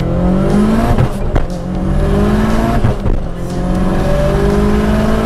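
Turbocharged Mitsubishi 4G63T four-cylinder of a Lancer Evolution VI conversion, built to about 800 hp, heard from inside the cabin under hard acceleration. The revs climb, drop at a gear change a little over a second in, climb again, drop at a second shift about three seconds in, then climb once more.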